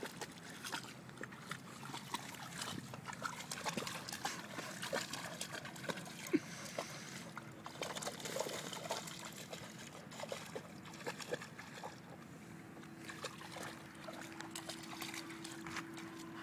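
Boxer dog wading and pawing at shallow pond water, making small irregular splashes and trickles that thin out in the second half. A faint steady hum comes in about halfway through.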